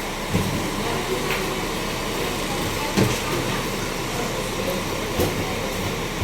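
Steady rumble of a vehicle engine running, with three dull thumps spread through it and faint voices in the background.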